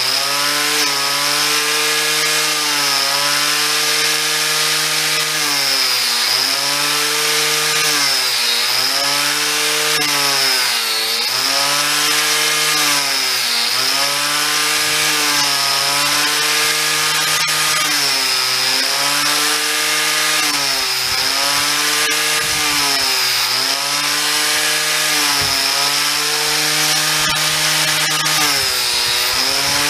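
Corded angle grinder cutting into the solid French oak end of a water-wheel axle-tree. Its whining motor drops in pitch and recovers every two to three seconds as the disc bites into the wood under load and then eases off.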